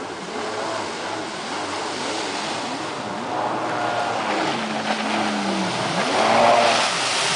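Jet ski engine running out on the water, its pitch rising and falling as it revs. A bullmastiff splashes as it wades in the shallows, louder near the end.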